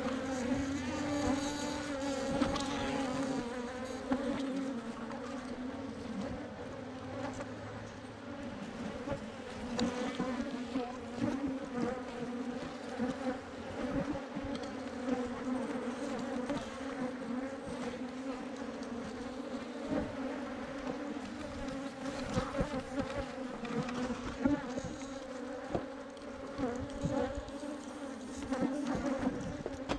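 A swarm of Africanized honey bees buzzing as a steady, dense hum, with scattered light knocks.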